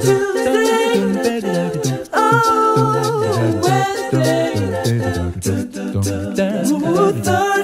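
Vocal music: a singing voice holding wavering notes over a low, pulsing beat.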